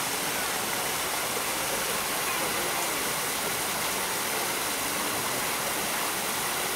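Steady, even rushing noise like falling water, constant in level throughout.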